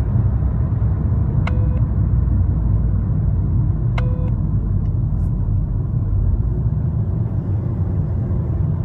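Steady low rumble of a VW Tiguan 2.0 TSI running, with a short click and brief ringing tone heard twice, about two and a half seconds apart.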